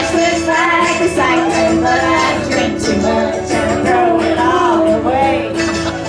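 Loud amplified music from a live stage performance: a steady held low note under a wavering melody, with frequent sharp strokes of strumming or percussion.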